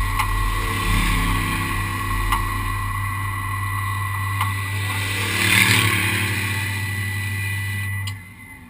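Vehicle engine running steadily, then cutting off suddenly near the end.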